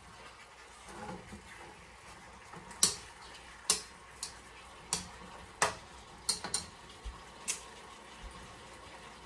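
Metal spatula clinking and scraping against a wok as chicken pieces are stirred: about eight sharp clinks between about three and seven and a half seconds in, the first two loudest, over a faint steady sizzle of the chicken frying.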